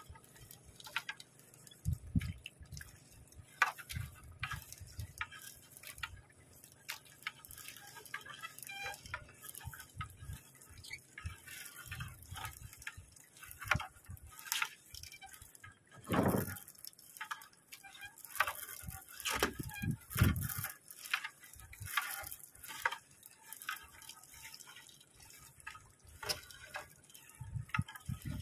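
Water dripping and splashing irregularly as a wet gill net is hauled hand over hand into a small boat, with a couple of louder splashes partway through.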